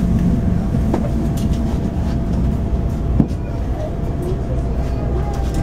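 Diesel light rail railcar heard from inside the passenger cabin, running with a steady low engine rumble and a faint steady hum as it pulls away from a station, with a few light knocks.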